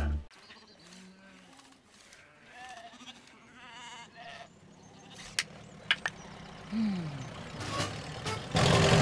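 Faint, wavering sheep bleats, with two sharp clicks and a short falling low tone; a loud, dense noise starts just before the end.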